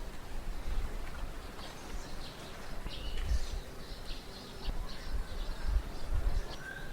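Morning residential ambience: small birds chirping in quick, short notes over a steady background hum, with irregular low rumbles.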